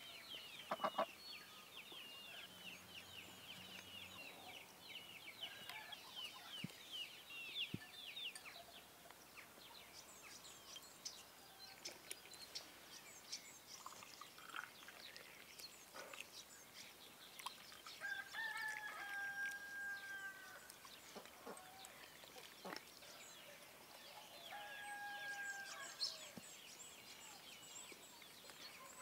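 Farmyard birds: quick, high twittering of small birds for the first several seconds, then a rooster crowing twice, a long crow past the middle and a shorter one near the end, with scattered chirps and clucks between.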